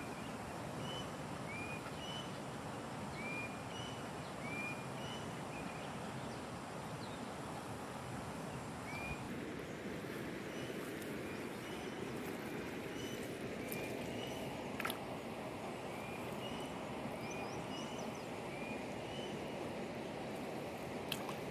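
Steady rushing of a river, with a bird repeating a short rising chirp about once a second. A sharp click about fifteen seconds in, and another near the end.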